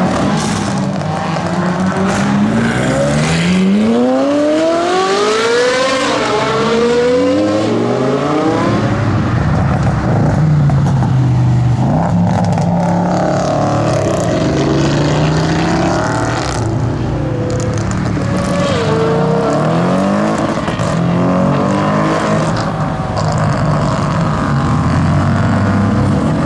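Straight-piped, tuned Audi RS6 C7 twin-turbo V8 exhaust running loud. Its pitch climbs steeply under acceleration, then rises and falls again and again, with scattered sharp exhaust crackles and pops.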